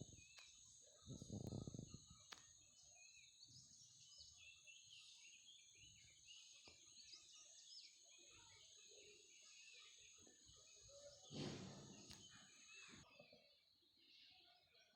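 Faint outdoor ambience: small birds chirping here and there over a steady high-pitched hum that cuts off near the end. Two short, soft low sounds break in, about a second and a half in and again near the end.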